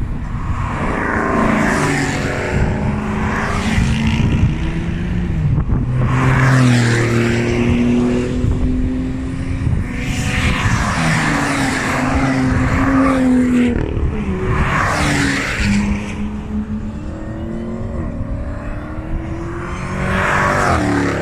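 Sports and track cars accelerating hard past one after another, engines revving up and dropping in pitch at each upshift, each pass-by swelling with a rush of noise.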